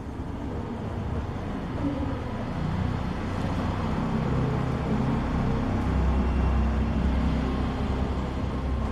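Low, steady rumbling background noise that grows louder over the first few seconds and stays up, with no distinct strikes or voices.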